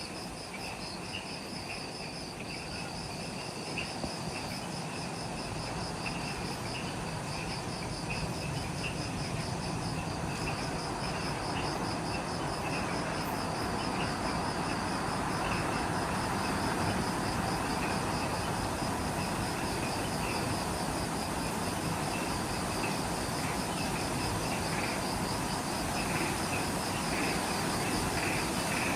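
Evening insect chorus in a subtropical forest: a fast, evenly pulsing high trill and scattered lower chirps over a dense hiss that slowly grows louder.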